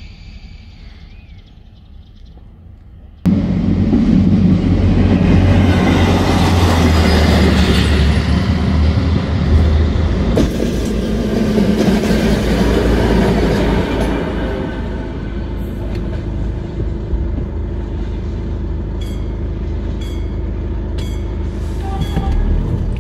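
HŽ series 7122 diesel-hydraulic railcar going by, its diesel engines and running gear loud from a sudden start a few seconds in and easing later. Near the end its wheels click evenly over rail joints, about two a second.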